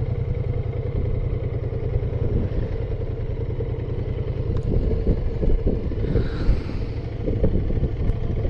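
Motorcycle engine running steadily while riding along at cruising speed, with a few short knocks partway through.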